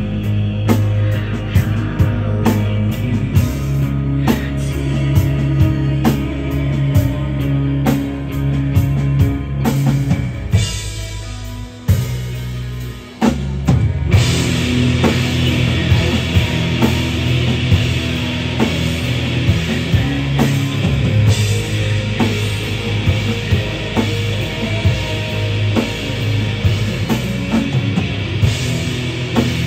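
Shoegaze rock band playing live: drum kit, bass and distorted guitars. About ten seconds in the music thins and drops away briefly, then comes back in fuller with a thick wall of guitar.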